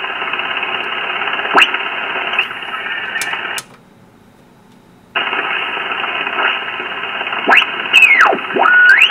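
Ten-Tec Jupiter 538 HF transceiver's receiver audio on the 20-metre band in upper sideband as its main dial is tuned: a steady hiss of band noise, with several whistles sweeping down and up in pitch as the dial passes signals. The audio drops out for about a second and a half near the middle, then returns.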